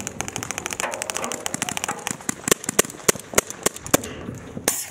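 Paintball marker firing repeatedly: a fast string of shots about a second in, then single sharp shots roughly three a second. The player is emptying his hopper, and runs out of paint moments later.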